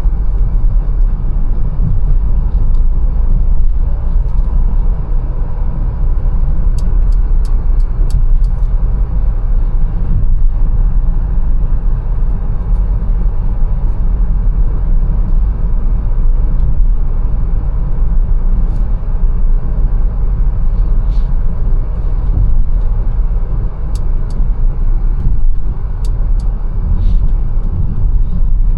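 Mercedes-Benz A180 being driven: a steady, low rumble of engine and road noise, with a few faint, sharp clicks scattered through it.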